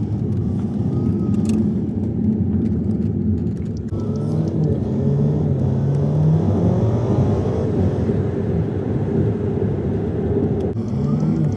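A car on the move: steady engine and road noise, with the engine's pitch rising and falling as it changes speed. The sound is broken by abrupt cuts about 4 and 11 seconds in.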